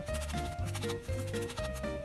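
Background music: a tune of short notes stepping up and down over a bass that pulses about four times a second.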